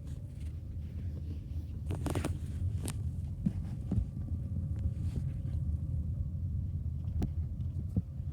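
Low, steady rumble of a Ford car's engine and tyres heard from inside the cabin while driving, with a few short knocks and clicks scattered through.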